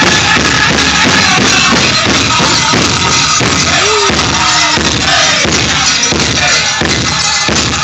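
Powwow drum group playing a chicken dance song: a large hand drum struck in a steady, fast beat, about three beats a second, with the singers' voices over it.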